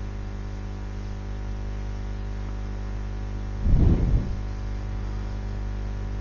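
Steady electrical mains hum on the recording, with a brief low rumble about four seconds in.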